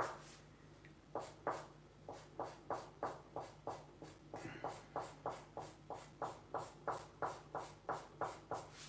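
Marker tip scrubbing back and forth on paper, filling in a solid black area in short strokes, about three a second. A faint steady low hum sits underneath.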